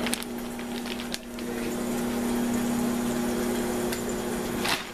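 A steady hum and whir from a running kitchen appliance, with a thin plastic food bag crinkling now and then as it is handled.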